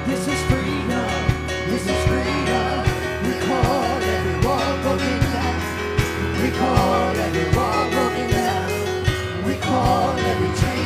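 Live worship band playing: singing over a steady drum beat and a sustained bass.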